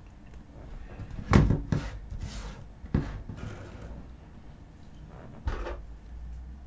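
Handling knocks and clicks as a hollow plastic action-figure head is moved about and set down on a cutting mat. The loudest knock comes about a second and a half in, a sharp click just before three seconds, and another knock about five and a half seconds in.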